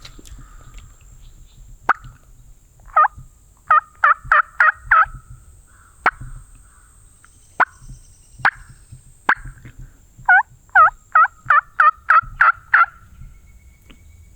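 Two runs of loud turkey yelps, about three notes a second, the first of about six notes and the second, near the end, of about nine. Several sharp single clicks fall between the runs.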